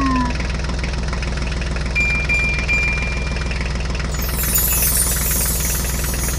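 Steady diesel tractor engine idling drone, dubbed in as a sound effect for a hand-pushed toy tractor. A thin high tone sounds for about a second and a half in the middle, and a high whooshing sound comes in over the last two seconds.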